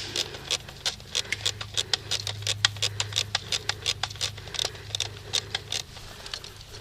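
Airsoft guns firing in scattered, rapid sharp clicks and pops, several a second, fewer near the end, over a steady low hum.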